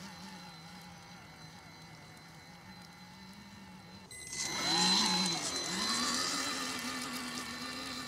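Whine of the brushed electric motor and grease-filled gearbox of a Vaterra Chevrolet K5 Blazer RC crawler. It starts faint and steady, jumps louder about four seconds in with its pitch rising and falling, then settles into a steady whine that slowly climbs.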